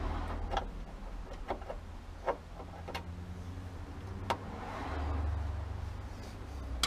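Hand tap being turned into the drilled-out grab-handle screw hole in the car's steel roof rail to cut a new M5 thread, giving a few separate sharp clicks over a low rumble.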